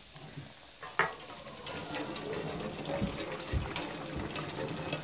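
Hot onion water being poured from a pot into a stainless steel colander, splashing and draining steadily through its holes, after a single knock about a second in.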